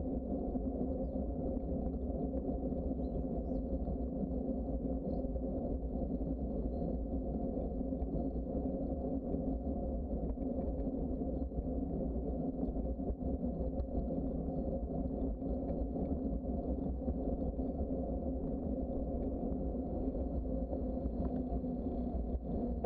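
Steady low rumble of a bicycle rolling along a trail: tyre noise, with wind and road vibration on the microphone.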